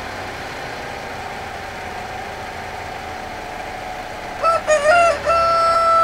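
A rooster crowing once, beginning about four and a half seconds in: a few short broken notes, then one long held note. Under it runs a faint steady hum.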